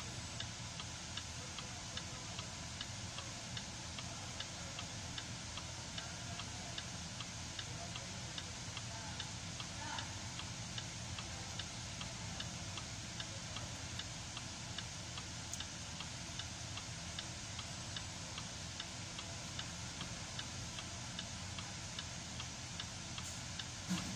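Land Rover LR4 engine idling steadily, with a regular light ticking of about three ticks a second over its low hum. It is on a long test run for misfires after the fuel injector O-rings were replaced, and is running without misfires.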